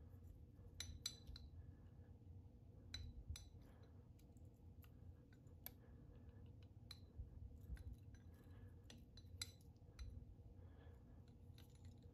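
Near silence with faint, scattered light clicks and ticks from handling at a fly-tying vise as fine red wire is wrapped and tied off behind the bead, over a faint steady hum.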